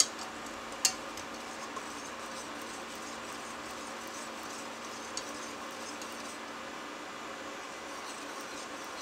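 Wire whisk stirring a milk-and-cocoa mixture round a stainless steel saucepan with a steady scraping swish. There are two sharp clinks of the whisk against the pan in the first second and a lighter one about five seconds in.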